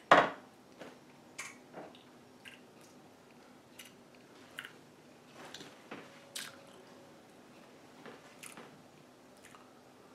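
A sharp knock at the start, like a drinking glass set down on a countertop, then scattered small mouth clicks, lip smacks and swallows as a thick green smoothie is tasted.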